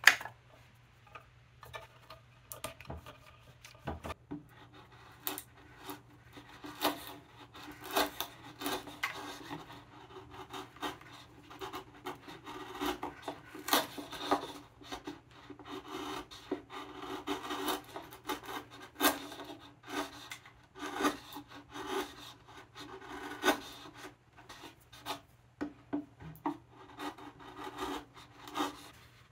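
Hand bench chisel paring wood inside a recessed pocket, a long run of short, irregular scraping and shaving strokes as chips are cut away. A single sharp knock comes right at the start.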